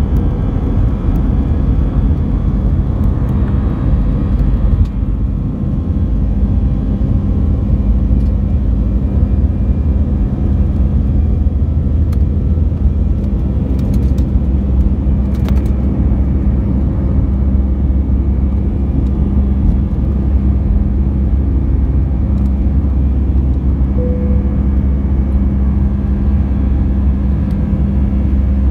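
Jet airliner's engines at takeoff thrust, heard from inside the cabin: a loud, steady low rumble and drone with a few faint clicks.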